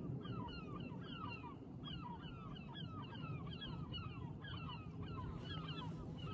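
Birds calling over and over, several short falling calls a second, over a low steady background rumble.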